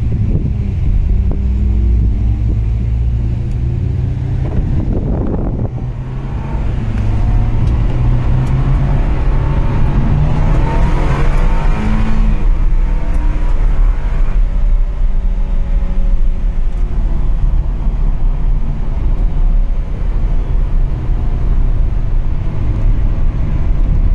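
A car engine at speed, heard from inside the cabin over wind and road noise. The engine note dips about six seconds in, then climbs as the car accelerates, and runs steady again from about fourteen seconds on.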